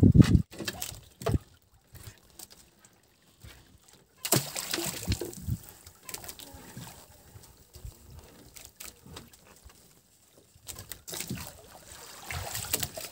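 Water splashing and sloshing against a small fishing boat at sea, in irregular bursts with a few knocks.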